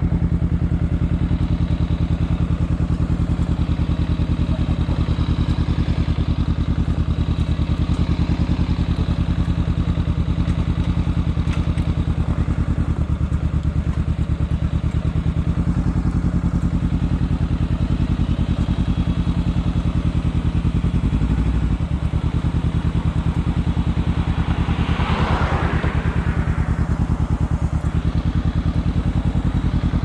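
Honda CBR500R's parallel-twin engine running at low revs, a steady, even beat. A short rushing noise passes near the end.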